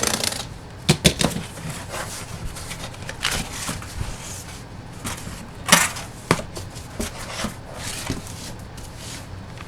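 Cardboard and plastic trading-card packaging being handled: a string of sharp clicks and taps, the loudest about a second in and near six seconds, with short rustles between them.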